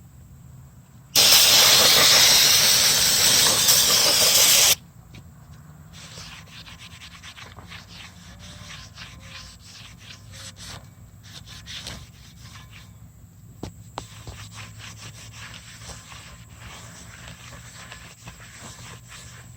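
Aerosol brake cleaner sprayed onto a new brake rotor in one long, loud hiss of about three and a half seconds that starts and stops sharply, washing off the rotor's shipping oil. Then quieter rubbing and light clicks as the rotor is handled and wiped with a rag.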